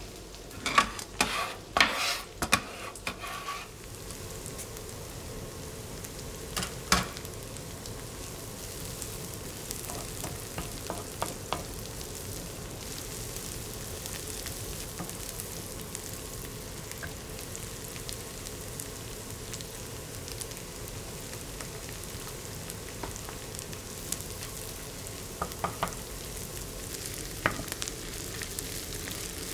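Food frying in a pan with a steady sizzle. There is a cluster of knocks and clinks in the first few seconds, and a few single taps later on.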